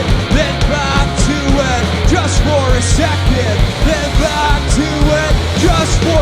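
Live rock band playing an instrumental passage: a drum kit with a steady kick beat and cymbals, under bass and guitar lines that bend in pitch.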